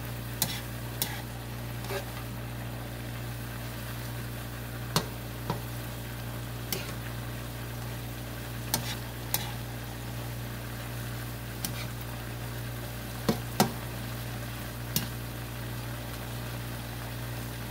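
Yardlong beans and pork belly sizzling in a nonstick wok as a plastic spatula stirs them, with sharp knocks and scrapes of the spatula against the pan every second or two. A steady low hum runs underneath.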